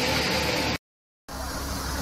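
Multi-crop threshing machine running steadily: a dense mechanical rush over a low pulsing hum. The sound cuts out to silence for about half a second a little under a second in, then the machine noise resumes.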